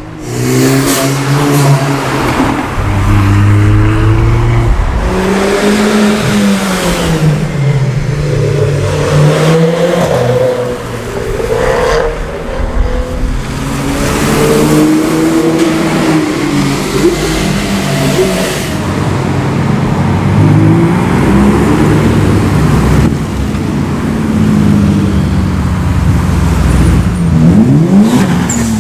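Several performance cars driving past at speed one after another, each engine note rising as it revs and falling as it goes by.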